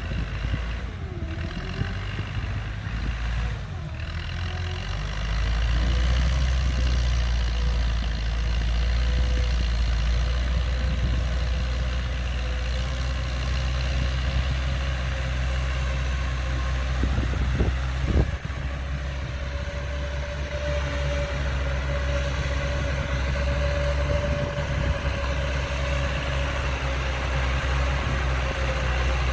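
Massey Ferguson 290 tractor's four-cylinder diesel engine running steadily under load, pulling a disc plough through dry soil. It grows louder about five seconds in as the tractor comes closer. A single short knock sounds about two-thirds of the way through.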